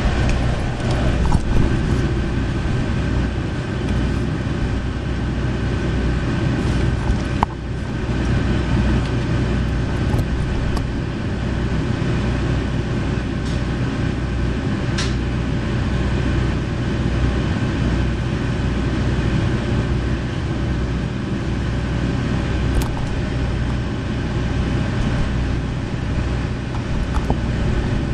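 JR Shikoku KiHa 40 series diesel railcar's engine running at a steady, unchanging note, heard from inside the passenger car, with a few light clicks.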